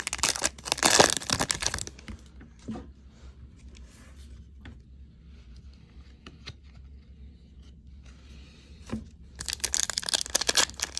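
Foil wrapper of a baseball card pack being torn open and crinkled for about two seconds, then quieter handling with a few light ticks, and crinkling again near the end.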